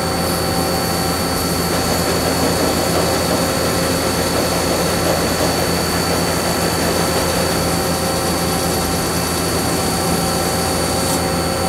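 Mazak Integrex twin-spindle CNC mill-turn machine running through its machining cycle, the spindle turning the part: a loud, steady machine hum with several high steady whines above it.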